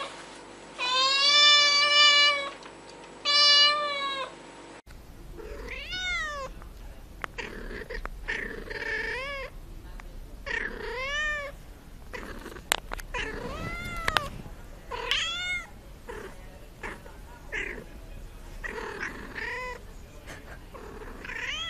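Cats meowing: first a kitten gives two long, level-pitched meows, then after a cut another cat makes a run of short meows that rise and fall in pitch, one every second or two.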